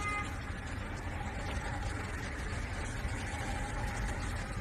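Steady road and engine noise of a car driving, as picked up by a dashcam inside the car, with no distinct blast or impact heard.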